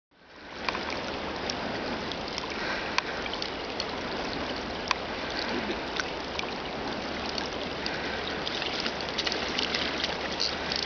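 Steady rush of a shallow river flowing, fading in over the first second, with a few faint sharp clicks.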